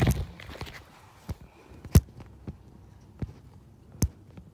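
Scattered sharp knocks and clicks, about six in four seconds, the loudest about two seconds in and again near the end: hands and a tool knocking against metal parts in a tight spot under the truck, with a hand-held camera being jostled.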